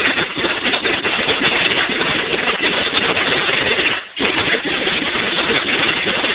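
A power tool running loud and steady, released for a moment about four seconds in and then pulled on again.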